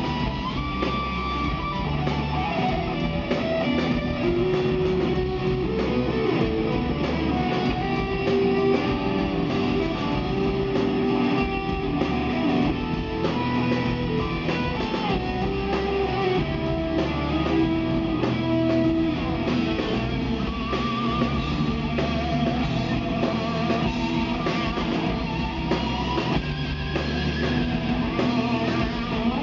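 Live rock band playing: electric guitars, bass guitar and drums, at a steady loud level throughout, with held, bending lead-guitar notes over the chords.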